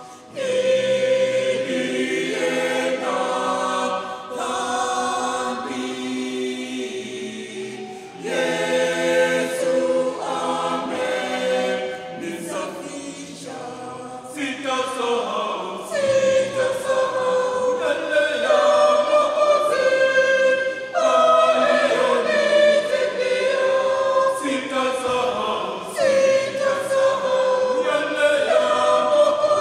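Mixed church choir of men's and women's voices singing a choral piece together, in held phrases of a few seconds each, with a softer passage about halfway through.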